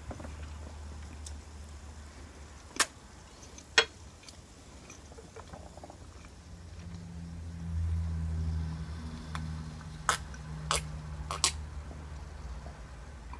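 Cutlery clicking sharply against a plate a few times during a meal, over a steady low hum; a low drone swells in about seven seconds in and fades after a few seconds.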